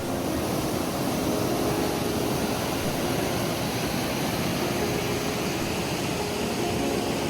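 Steady rushing of water pouring over Stubbs Falls, an even roar with no breaks.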